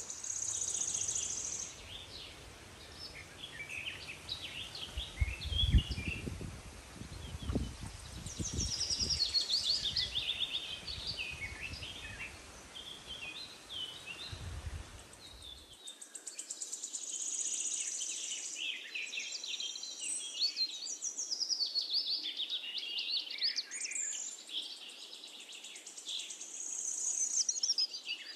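Birds chirping and calling in many short, quick notes, with high trills at times. Low rumbling runs through the first half, with one louder thump about six seconds in.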